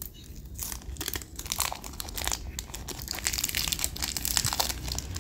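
Packaging crinkling and rustling as it is handled, a dense run of small irregular crackles that gets busier about a second in.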